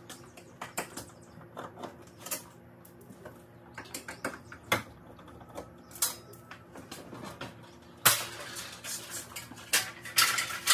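Scattered clicks, taps and knocks of a sheet-metal breaker-panel cover and interlock kit plate being handled while the plate's hole positions are marked. A longer scraping rattle comes about eight seconds in and again near the end as the cover is taken off the panel. A faint steady hum runs underneath.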